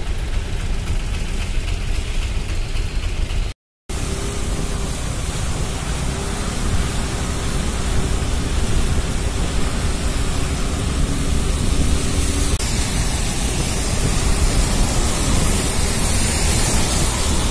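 Steady traffic and road noise on a wet road heard from a moving vehicle: tyres hissing on wet asphalt and wind rushing, with engine drone underneath. The sound cuts out briefly about three and a half seconds in and grows slightly louder toward the end.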